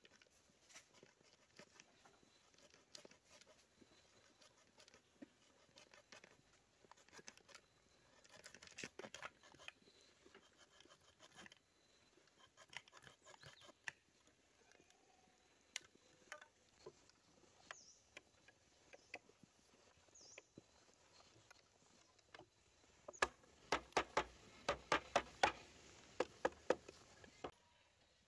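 Faint, scattered light taps and clicks, then near the end a quick run of sharper knocks, about four a second, for a few seconds.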